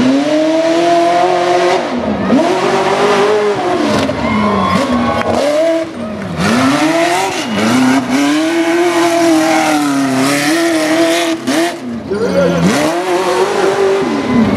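Pickup truck engine revving hard and dropping off again and again as the truck is driven over rough dirt obstacles, its pitch climbing and falling every second or two.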